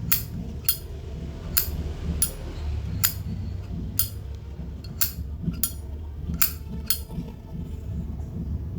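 Solid brass Zippo lighter's hinged lid being flicked open and snapped shut over and over, about ten sharp metallic clicks at uneven intervals, each with a brief ring.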